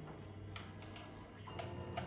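Tina 2 mini 3D printer running a print: a faint steady stepper-motor hum with a few light ticks.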